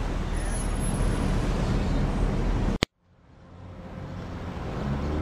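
A car driving, steady engine and road noise that cuts off abruptly about three seconds in; a quieter low hum then fades in and grows louder.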